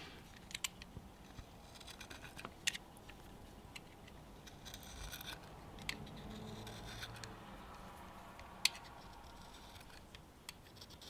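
A utility knife blade dragged lightly along an 18650 lithium-ion cell, faintly scraping silicone adhesive off its plastic wrap. Small sharp clicks come now and then as the blade and cell are handled; the sharpest is near the end.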